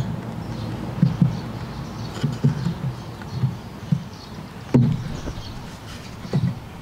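Wooden cabinet door being swung and fitted into its wooden frame, giving a string of soft, irregular wooden thuds and knocks, with a sharper knock about five seconds in.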